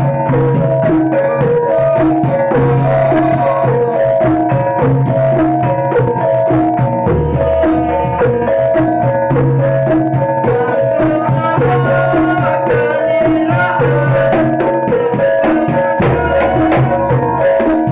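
Jaranan ensemble music: hand drums beating a dense, steady rhythm over ringing gongs and metallophones, with deep gong tones swelling about 7 seconds in and again near the end.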